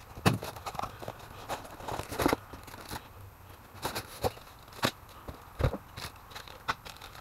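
Packaging being handled and opened: irregular crinkles, scrapes and sharp little clicks, a few every second.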